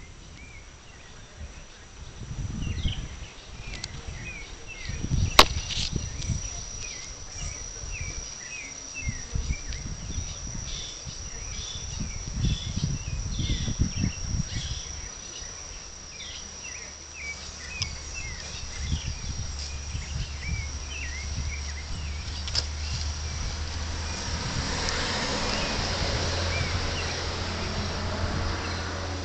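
Rainforest insects: a steady high-pitched drone with many short chirps repeating over it. Low thumps and rustling close to the microphone, with one sharp click about five seconds in and a rushing rustle growing louder near the end.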